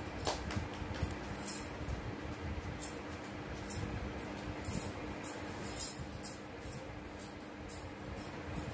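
Scattered light, high clicks and clinks, a few a second at irregular spacing, over a steady low hum.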